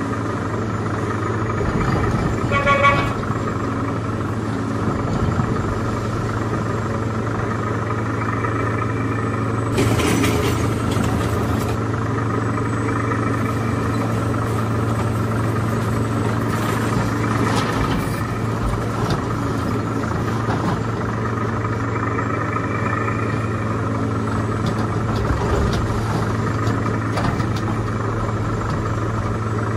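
A steady electronic imitation of a heavy diesel engine running, with a short horn toot about three seconds in. Brief rattling clicks come around ten and seventeen seconds in.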